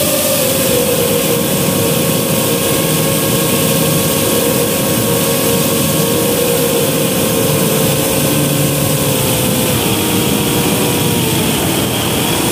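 Motors and propellers of a 5-inch FPV quadcopter whining steadily over a rush of air, heard from on board the quad; the pitch eases down a little near the end.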